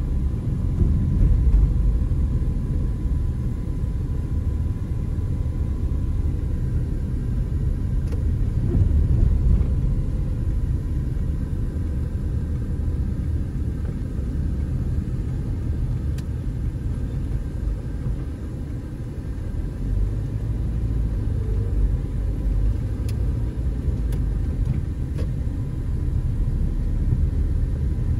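Low, steady rumble of engine and road noise heard inside a moving car's cabin.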